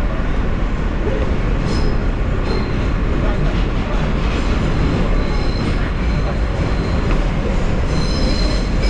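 New York City subway train running on its rails, heard from inside the car: a steady, loud rumble, with high-pitched wheel squeals coming and going and strongest near the end.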